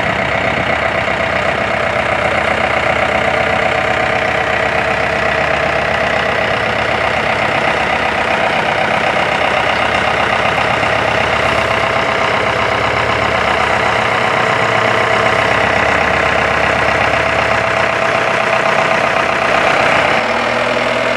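Aircraft tow tractor's engine running steadily while it pulls a business jet on a tow bar, with a steady high whine over the engine's low drone.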